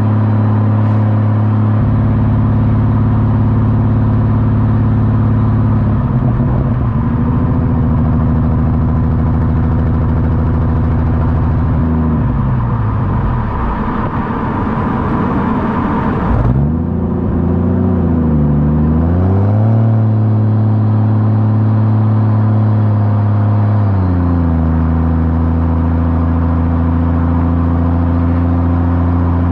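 Ford FG Falcon XR6 Turbo's turbocharged inline-six through a 4-inch exhaust with the rear muffler deleted and shotgun tips, running steadily on a drive. The engine note changes pitch several times, wavering up and down around the middle and settling lower near the end.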